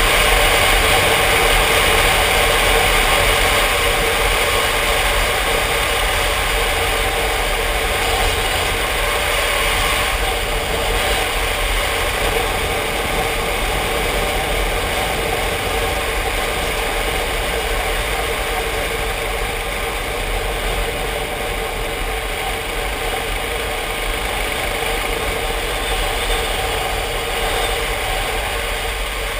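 Yamaha Ténéré motorcycle engine running at a steady cruising speed, with wind noise from riding at speed, heard from the rider's position.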